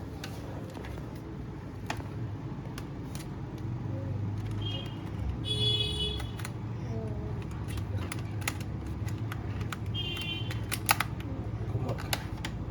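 Scattered small plastic clicks and taps from handling a wireless mouse while it is being fitted for use, over a steady low hum. A few brief high-pitched tones come near the middle and again later.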